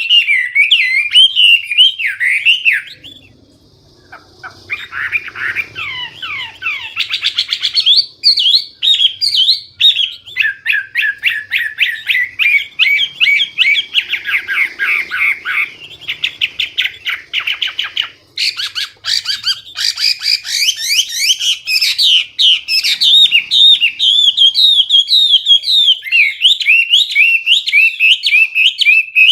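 Chinese hwamei singing loudly and nearly without a break: a long, varied song of slurred whistles and rapid repeated trilled notes, with a brief pause about three seconds in. It is a bird in full song ("gacor"), its song packed with learned phrases ("isian").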